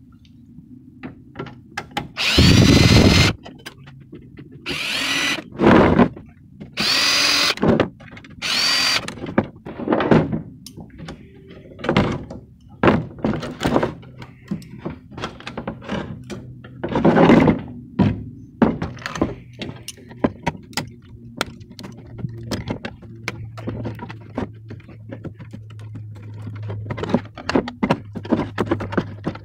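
Cordless drill/driver backing screws out of a sheet-metal case, in about five short whirring bursts over the first ten seconds and one more about halfway through. Then come clicks and clatter as the circuit board and wires are handled and snipped with side cutters.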